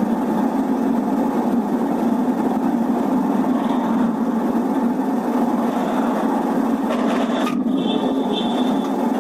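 Steady engine and road noise of a car driving, picked up by a dashcam inside the cabin.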